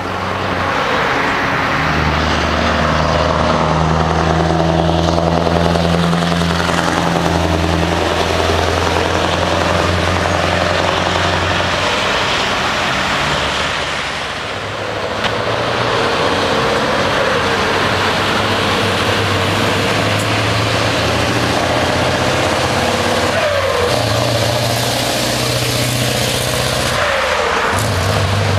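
Scania V8 truck engines with open exhausts pulling away and driving past, a loud deep engine note whose pitch holds and then changes in steps. There is a brief dip about halfway through, and rising revs near the end.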